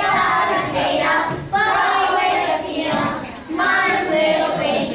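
A group of young children singing together, in three phrases with brief breaks between them.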